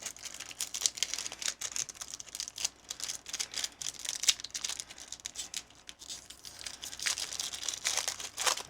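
Foil Pokémon booster pack wrapper crinkling and being torn open by hand: a dense run of sharp crackles that thickens midway and again near the end.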